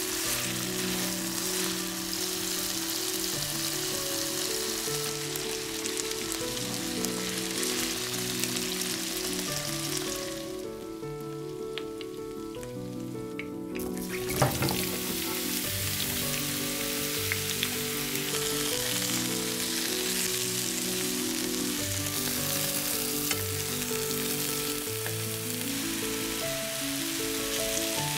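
Chicken pieces sizzling as they fry in oil in a nonstick frying pan, over soft background music. The sizzle drops out for a few seconds near the middle. A clatter follows as raw courgette chunks are tipped into the pan, and the courgette then fries with a steady sizzle.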